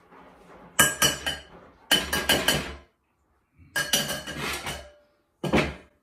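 Metal mesh sieve rattled and knocked against a stainless steel mixing bowl while sifting flour. It comes in four bursts of quick, ringing metallic clinks.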